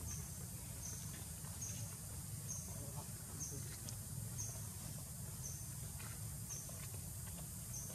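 A small creature's short, high chirp repeating evenly about once a second over a low outdoor rumble.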